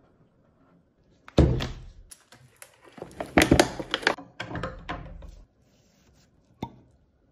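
A series of thuds and knocks from a glass liquor bottle being handled in its wooden, felt-lined presentation box, the loudest about a second and a half in and again in a cluster around three and a half to five seconds. A short sharp click comes near the end.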